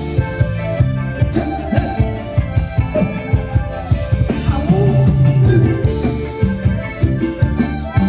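Live band playing ramwong dance music: a steady drum-kit beat, bass and keyboard, with a singer.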